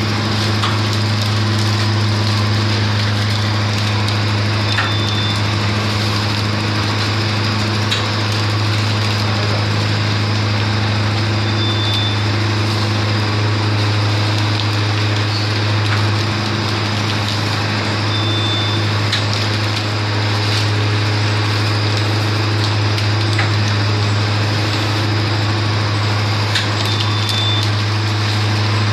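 Semi-automatic detergent granule filling machine running steadily with a constant low motor hum, a few scattered clicks and a short high beep about every seven seconds.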